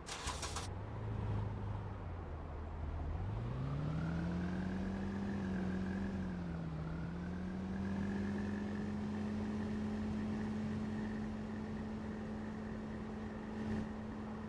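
A short rattle at the start, then a motor's hum that rises in pitch over about two seconds, dips once, and settles into a steady drone.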